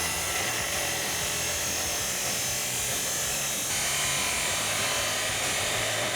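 Abrasive chop saw running steadily as its blade cuts through a stainless steel exhaust pipe, a continuous motor whine over grinding noise; the tone shifts slightly about three and a half seconds in.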